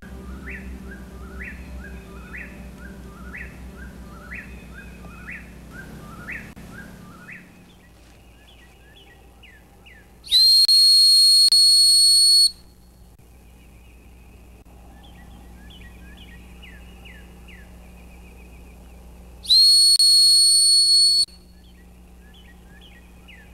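A loud, steady, high-pitched whistle sounds twice, each blast about two seconds long, with a short upward bend at the start. Small birds chirp rapidly and repeatedly throughout.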